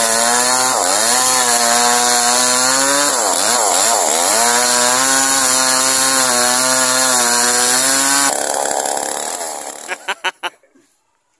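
Small chainsaw running at high revs while cutting lengthwise through a palm trunk. Its pitch dips briefly several times as the chain bites and bogs in the wood. The sound fades away near the end, followed by a few quick sharp knocks.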